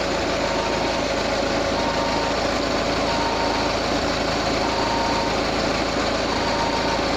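Peugeot 508 idling, with a high-pitched beep from the engine bay sounding about half a second at a time, roughly every one and a half seconds, five times, over the steady engine noise.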